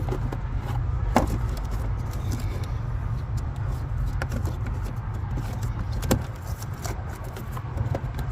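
A steady low rumble in the truck cab, with a few sharp clicks and knocks from handling the plastic dash panels and fuses.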